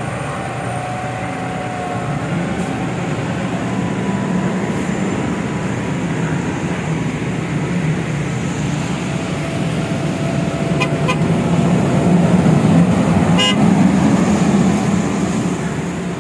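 Road traffic on wet pavement: vehicle engines running and tyres hissing on the wet road, growing louder about two-thirds of the way through as vehicles pass close.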